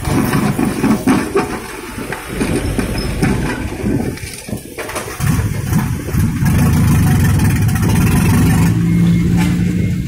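Diesel engine of a SANY excavator working, with the bucket scraping and clattering through soil and rocks in the first half. From about five seconds in, the engine note rises and holds steady as the hydraulics work under load.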